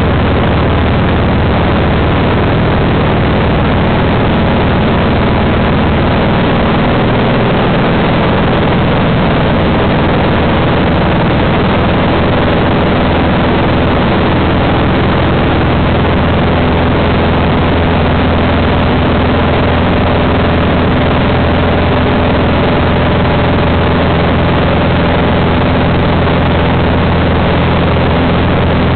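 Cessna light aircraft's piston engine and propeller droning steadily, heard inside the cabin with heavy rushing air noise. The engine note shifts slightly about six seconds in.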